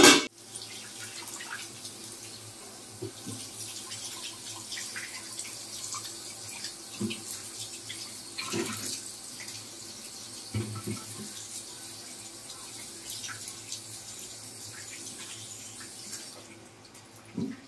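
Tap water running into a stainless steel sink while raw meat is rinsed under it by hand, with a few soft knocks as the pieces are handled; the water stops about 16 seconds in. A sharp metallic clank of an aluminium pot lid comes right at the start and is the loudest sound.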